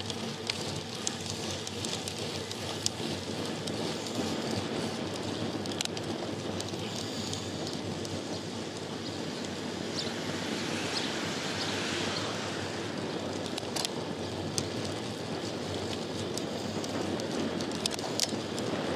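A road bicycle riding along, heard from its handlebars: steady tyre and wind noise with scattered small clicks and rattles, and a hiss that swells briefly around the middle.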